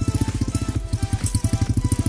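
Single-cylinder four-stroke UD-15 carburettor engine of a mini tractor converted from an MTZ-05 walk-behind tractor, running steadily with an even, quick thudding of about thirteen firing pulses a second.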